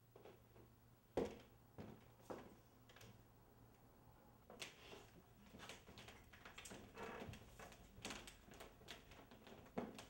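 Faint irregular clicks and knocks from a wooden front door's latch and knob being worked as the door is opened, with likely footsteps on the hardwood floor, over a low room hum. The sharpest knocks come about a second in and just before the end.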